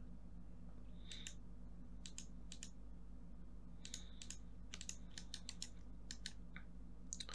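Irregular clicks of a computer keyboard and mouse, many coming in quick pairs, over a steady low electrical hum.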